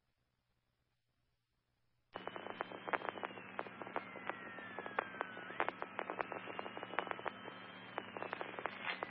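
A radio transmission from an open mic keyed with no one talking. About two seconds in, the channel opens with crackling static and a steady low hum. A siren can be heard through it, its wail slowly falling and then sweeping back up, over and over.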